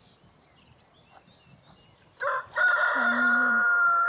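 A rooster crows once, starting about two seconds in: a short opening note, then a long, loud held call that begins to drop in pitch at the end.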